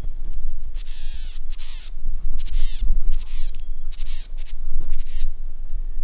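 A bird giving a string of six short, harsh, caw-like calls, roughly one every 0.8 seconds, over a low rumble.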